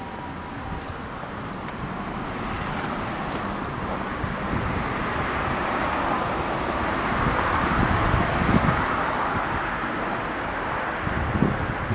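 Road traffic: a car passing, its tyre and engine noise swelling to its loudest about eight seconds in and then easing off. Within the first second, the tail of an ambulance's two-tone siren stops.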